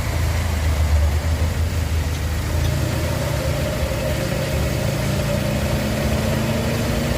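Chevrolet S10 pickup running with its driveshaft turning: a steady low hum, with a held whine coming in about three seconds in and a second, lower tone slowly rising later. This is the noise of a bad driveshaft centre support bearing.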